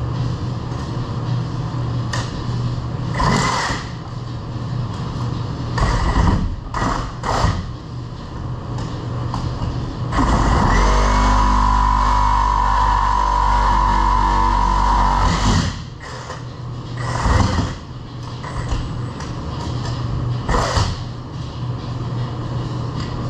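Cordless power tool running in one long burst of about five and a half seconds near the middle, with several shorter bursts before and after, over a steady low hum.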